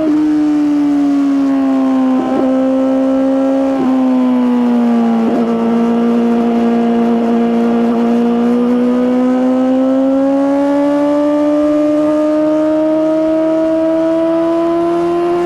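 2023 Suzuki GSX-R1000R's inline-four engine through an Akrapovic slip-on exhaust, heard while riding. The engine note drops over the first few seconds with a few brief breaks, holds steady, then climbs slowly through the second half as the bike accelerates.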